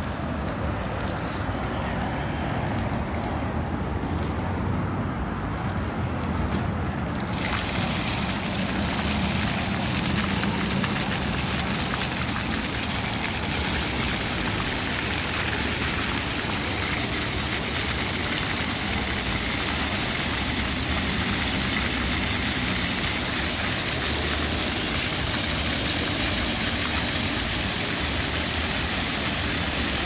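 Ground-level plaza floor fountain jets switching on about seven seconds in: a sudden rise to a steady hiss and splash of spraying water, over a low rumble.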